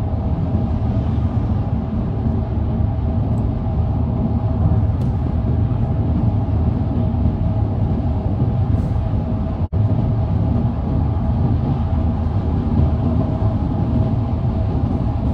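Steady road and engine rumble heard inside a car's cabin at motorway speed. The sound drops out for an instant about ten seconds in.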